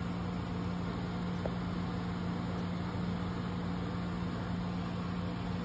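Steady hum of a room appliance's motor and fan running, with a constant low tone under an even whoosh.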